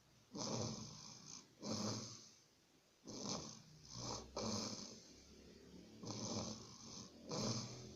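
A person snoring: rough, rattling snores that come in pairs, one on the in-breath and one on the out-breath, about three breaths in a row.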